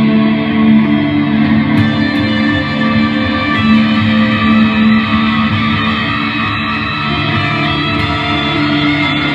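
Live band music in an instrumental passage without vocals: electric guitar playing over sustained, held tones.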